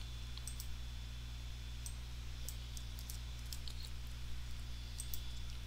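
Faint, scattered clicks of a computer keyboard and mouse, a dozen or so at irregular intervals, over a low steady hum.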